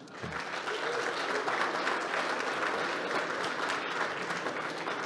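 Audience applauding: many hands clapping together, rising in right at the start and holding steady.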